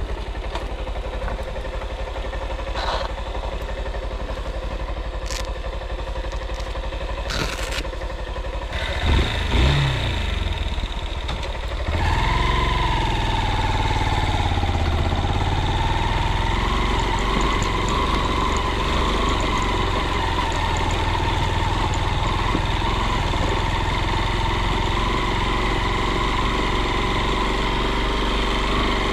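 A vehicle engine running steadily at low revs, with a few short clicks and knocks in the first ten seconds. About twelve seconds in the engine gets louder and keeps running steadily from there, its pitch wavering slightly.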